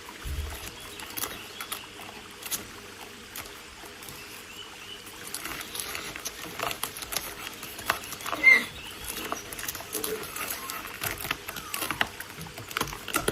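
Light scratching with scattered small clicks, and a brief squeak about eight and a half seconds in.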